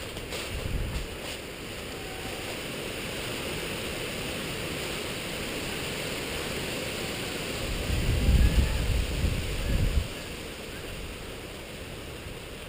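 Steady rushing noise with a louder, low rumble for about two seconds, two-thirds of the way in.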